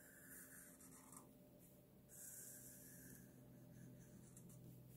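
Sharpie felt-tip marker drawn across paper: faint scratchy strokes inking crosshatch lines, two of them about a second long in the first three seconds, then shorter ones.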